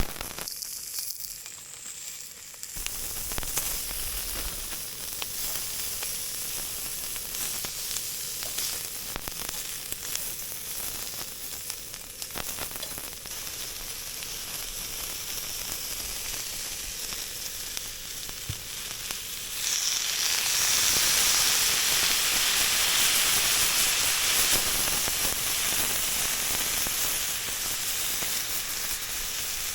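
Sausage and cabbage frying for yakisoba in a pan, with a steady sizzle. The sizzle picks up about three seconds in and grows louder and brighter about twenty seconds in.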